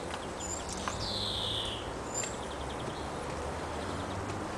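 Birds chirping in short high calls, with one longer falling whistle about a second in, over a faint low background hum.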